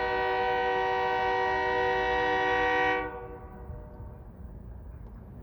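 Great Lakes Central Railroad locomotive air horn sounding one steady chord of several notes, which cuts off about three seconds in and leaves a low rumble.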